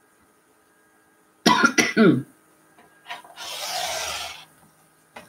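A short bout of coughing about a second and a half in, then about a second of rasping as a rotary cutter is run through fabric on a cutting mat.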